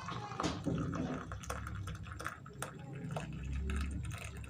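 Boiled milk being poured into a cup, splashing and trickling, with a few light clicks.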